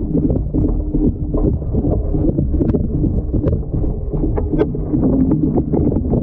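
Washing machine running through a wash, heard by a GoPro tumbling inside the drum: a steady low rumble with water sloshing and irregular knocks as the camera hits the drum.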